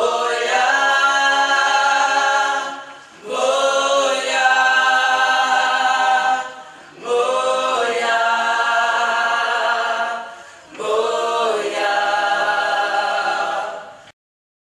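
Gospel choir singing a cappella: four long held chords, each sliding up into pitch at its start, with short breaks between them. The singing cuts off suddenly just before the end.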